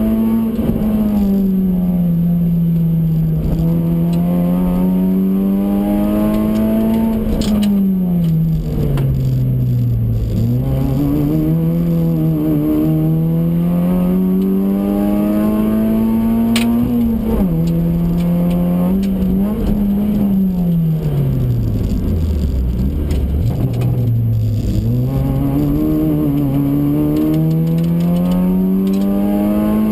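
Honda Fit RS (GE8) 1.5-litre four-cylinder engine heard from inside the cabin while the car is driven hard around a circuit: the engine note climbs under acceleration and drops with gear changes and braking, over and over. It falls to a deep, slow note once, about three quarters of the way through, before climbing again.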